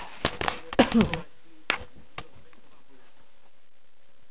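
A cluster of sharp clicks and knocks from handling things, with a brief bit of voice mixed in, in the first second or so, then two more single clicks and a faint steady hum.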